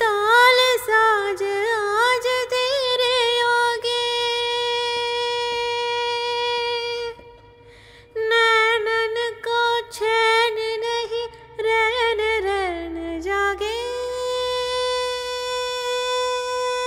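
Background song: a woman singing long, drawn-out wordless notes with ornamented bends in pitch, breaking off for about a second about seven seconds in.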